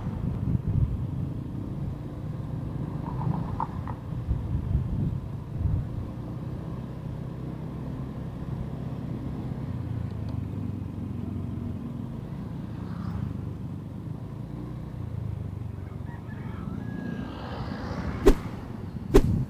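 A motorcycle ride heard through a helmet-mounted action-camera microphone: a steady low rumble of engine and wind. Two sharp clicks come near the end.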